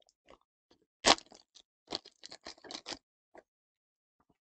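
Foil trading-card pack wrapper being pulled open and the cards slid out. A sharp crinkle comes about a second in, then a quick run of short rustles and scrapes.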